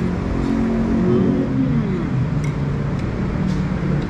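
Road traffic: a motor vehicle's engine running close by, its note dropping about a second and a half in.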